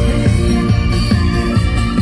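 Loud live concert music from the stage speakers: an instrumental stretch of an upbeat trot song, with guitar over a steady beat and no voice singing.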